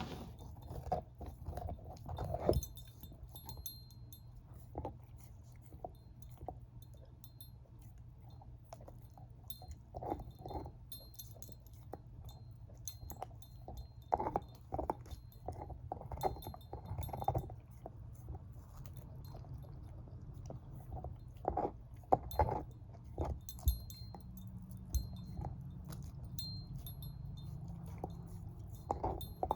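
A shepherd-mix dog gnawing on a bone: irregular bursts of crunches and sharp clicks, separated by quieter pauses, over a steady low hum.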